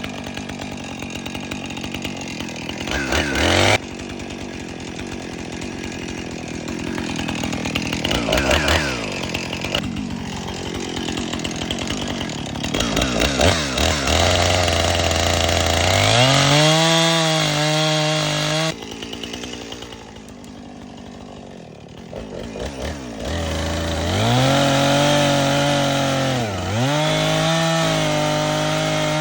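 Two-stroke chainsaw running, dropping to a low idle and revving up to a high steady pitch several times as it cuts through brush, with abrupt breaks where the sound cuts off and restarts.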